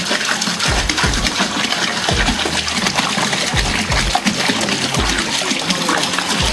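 Water gushing in a steady stream from a large plastic bottle into a fermenting bucket of stout wort, topping up the brew. A low beat pulses underneath about every two-thirds of a second.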